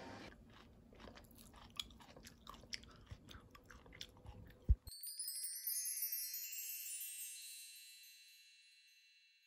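Faint scattered chewing clicks, then a single soft thump about four and a half seconds in. A bright wind-chime-like shimmer of high, downward-gliding tones follows and fades away over several seconds, in the manner of an edited-in chime sound effect.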